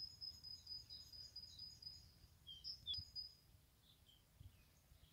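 Faint birdsong: a small songbird singing a fast run of high, thin repeated notes for about the first two seconds, then a few scattered high chirps. A soft knock comes about three seconds in.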